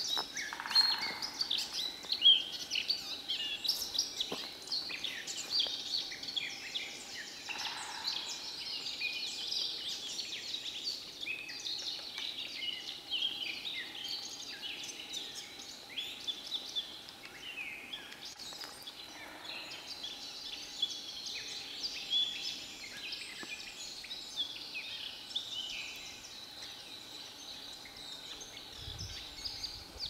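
Small songbirds singing and chirping together in woodland, many quick, high, overlapping calls throughout.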